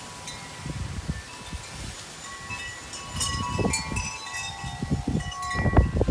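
Wind chimes ringing and jangling in gusty wind, with several overlapping bell-like tones. Low gusts buffet the microphone, growing louder near the end.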